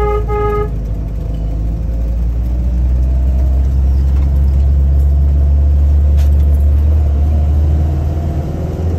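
Car driving on a steep, rough hill road, heard from inside the cabin: a steady low engine and road rumble, with the engine note slowly rising through the middle as it pulls. Right at the start come two short beeps.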